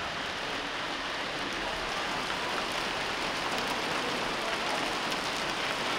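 Steady rain falling: an even, unbroken rush of rain on wet surfaces.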